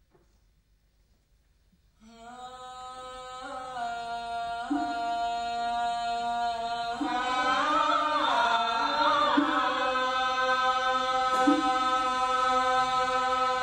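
A woman's voice singing a long, held chant-like line in a Vietnamese folk style. It starts about two seconds in and grows louder, its pitch bending at the turns of each phrase.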